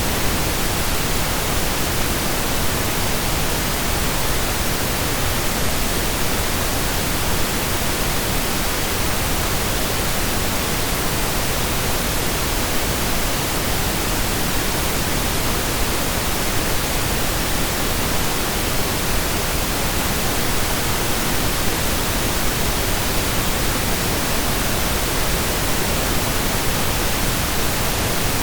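Steady synthesized pink noise: an even, unchanging hiss spread across the whole range, like steady rain or a waterfall.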